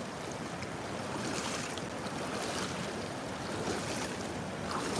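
Steady wash of shallow floodwater moving over a river bank.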